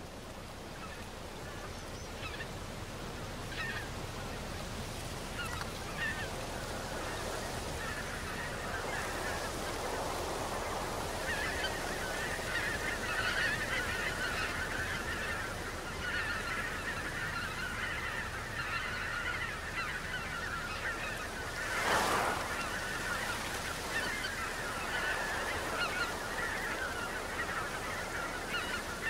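A large flock of geese calling continuously, a dense chorus of overlapping honks that builds up and grows fuller from about ten seconds in. One brief sharp knock about two-thirds of the way through.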